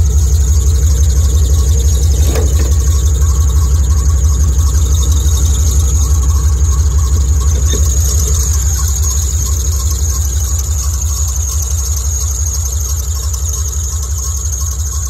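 Jeep Grand Cherokee ZJ's 5.9-litre Magnum V8 idling steadily with a constant high-pitched squeak from the accessory belt, which the owner puts down to the belt rather than the AC compressor. A short click about eight seconds in as the hood latch is released.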